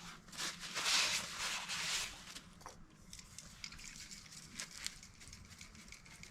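Rustling, scraping and a few light clicks and knocks of parts being handled during hands-on car repair work, louder about a second in.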